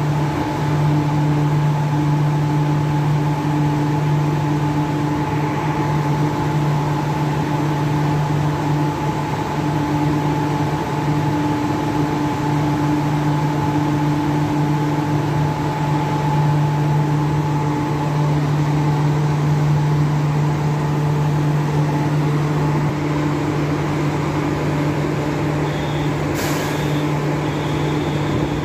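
Steady hum of a double-deck electric train's air conditioning and auxiliary equipment while it stands at the platform, a few steady tones held throughout. Near the end there is a sharp click and a short high tone.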